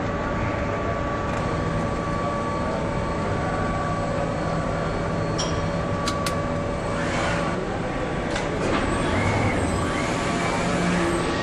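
Steady hum and whir of factory production-line machinery, with a few short metallic clicks about halfway through.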